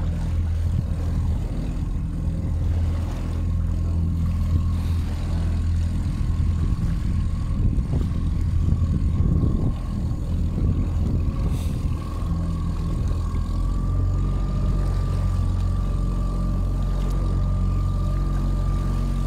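Small boat's outboard motor running steadily under way, with water rushing past the hull. Its whine rises slightly about two-thirds of the way through.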